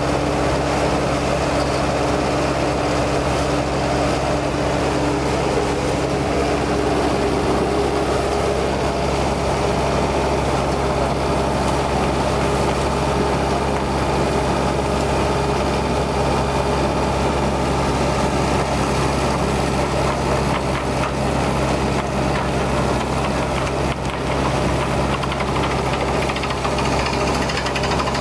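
Beretta T44 drilling rig running steadily, its engine and hydraulics giving a constant drone; a higher hum within it fades out about seven seconds in.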